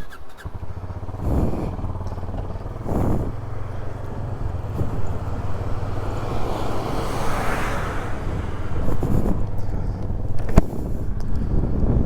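Motorcycle engine running steadily as the ride sets off. A rushing noise swells and fades in the middle, and there is a sharp click about ten and a half seconds in.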